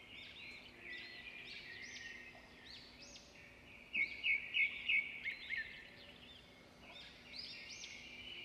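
Birdsong ambience: many small birds chirping and twittering, faint, with a louder run of quick chirps about four seconds in.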